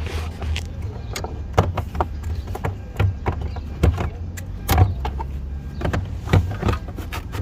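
Irregular sharp clicks and knocks of hands and tools working on a car's rear seat and trim, over a low steady hum.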